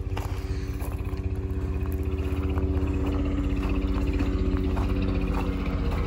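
An engine running steadily at one pitch, growing louder over the first few seconds, with scattered footsteps on top.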